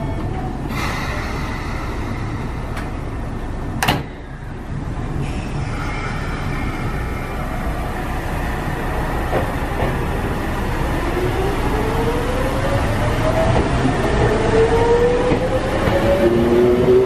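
Sotetsu 8000 series electric train pulling out of a station: a sharp clack about four seconds in, then from about ten seconds the motors' whine rises steadily in pitch and grows louder as the train accelerates away.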